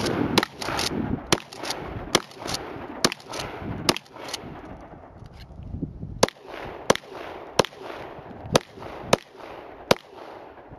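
A Remington 870 12-gauge pump shotgun fired in a quick string of heavy blasts with a rumbling echo over the first four seconds. After a short pause, a pistol fires six single shots, roughly one every two-thirds of a second.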